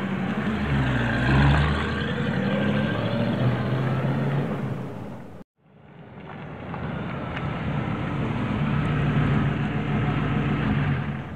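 Old truck engine running as the truck drives by, its pitch shifting as it goes. It cuts off abruptly about five and a half seconds in, then fades back in and rises again for a second pass.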